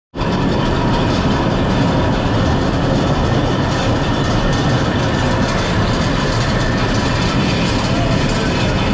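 Steady, loud noise of running machinery with a faint steady hum, unchanging throughout.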